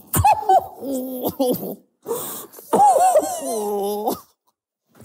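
Men's stifled laughter: short choked laughs, then a long strained whine, held and wavering, about three seconds in.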